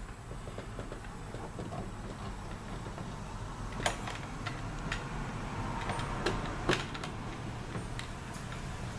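Ratchet, extension and socket clicking and knocking against metal as they are worked onto a 10 mm bolt, the sharpest knocks about four seconds in and twice near seven seconds, over a steady low hum.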